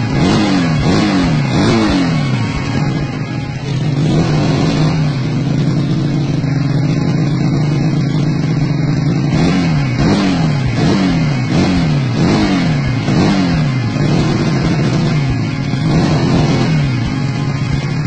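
Honda C70 motorcycle with a two-cylinder engine, revved in quick repeated throttle blips whose pitch falls back each time. The blips come in two bursts, in the first couple of seconds and again a little past halfway, with steady running in between.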